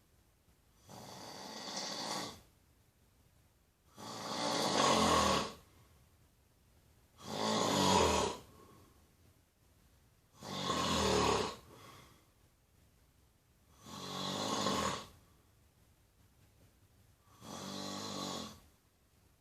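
Snoring in a steady rhythm: six long snores, each a little over a second, coming about every three seconds with quiet between breaths.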